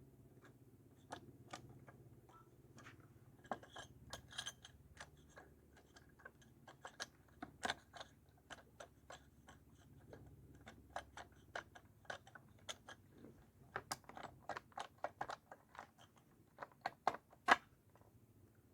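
Irregular light clicks and clinks of tools and small metal parts being handled while working on a chainsaw's clutch, coming more thickly in the second half, with one sharper click near the end.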